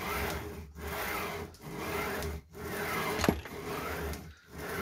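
Aldi Ferex 216mm sliding mitre saw's head pushed back and forth along its steel slide rails, about one stroke a second, the bearings making a bearing singing noise. The rails have just been oiled to cure a grinding, scraping noise.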